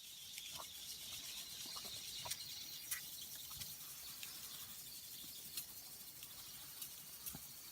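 Steady high-pitched hiss of steam escaping from the jets of a Saito Heron's ball steam engine, with scattered small ticks and clicks.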